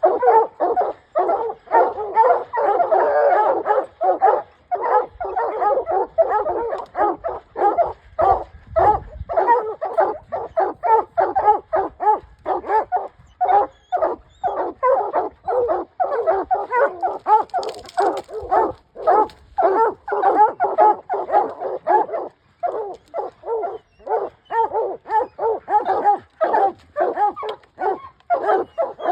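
Several hounds barking continuously at the base of a tree, rapid overlapping barks about two to three a second: the steady tree bark that signals they have a mountain lion treed.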